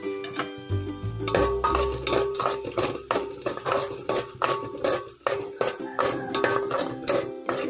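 A spoon stirring and scraping chopped onions and garlic frying in oil in a metal pot, over background music with a steady plucked beat.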